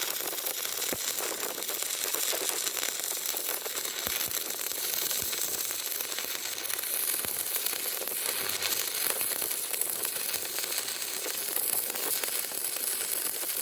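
Stick welding arc on steel reinforcing bar, crackling and hissing steadily with a dense patter of small pops.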